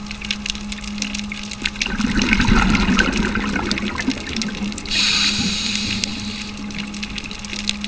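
Underwater scuba breathing through a regulator. Exhaled bubbles rumble out about two seconds in, and an inhale hiss follows about five seconds in, over a steady low hum and scattered sharp clicks.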